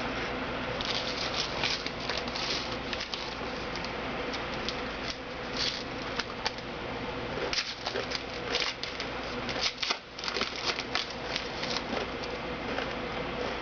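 Football trading cards being handled and sorted by hand: irregular quick rustles and light clicks of card stock, over a steady low hum.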